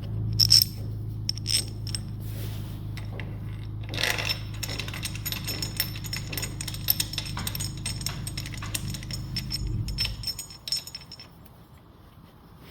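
Metal tools and bolts clinking and tapping against engine brackets during hands-on work, over a steady low hum that stops about ten seconds in.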